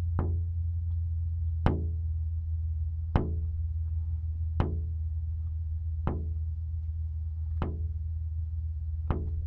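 Soundtrack music: a steady low drone with a single sharp knock struck about every one and a half seconds, seven times, like a slow wood-block beat.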